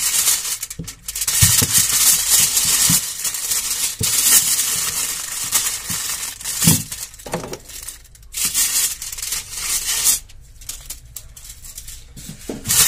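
Aluminium foil crinkling and rustling in bursts as it is folded and pressed around eggplants, with a few short knocks against the counter.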